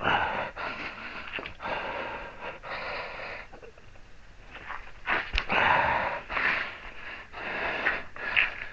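A man breathing hard and wheezing in long strained breaths as he heaves on a wrench to torque a large nut, with a single sharp click about five seconds in.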